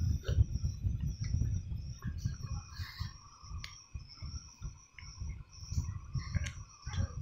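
Crickets chirping in a steady high-pitched trill over a low rumbling background noise.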